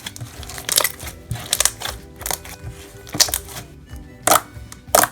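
Thick white glue slime being pressed and squeezed, its trapped air bubbles popping in a series of sharp pops, about two a second. Background music plays underneath.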